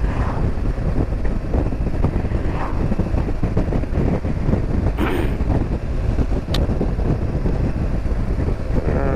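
BMW R1200GS motorcycle on the move: wind rushing over the microphone, with the flat-twin engine running underneath. A short sharp click comes about six and a half seconds in.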